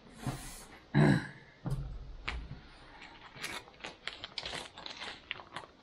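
Plastic food pouch crinkling and rustling as it is handled on a wooden rail, with scattered small clicks and taps. There is a brief voiced sound about a second in.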